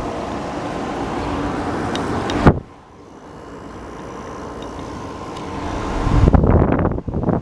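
Window air conditioner running, a steady whoosh of fan and compressor noise. It drops off sharply after a click about two and a half seconds in, then builds again to a loud low rumble near the end.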